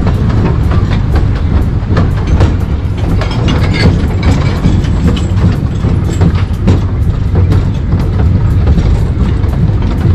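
Small narrow-gauge forest railway train running, heard from aboard: a steady low rumble with a rapid, irregular clatter of wheels and carriage knocking over the track.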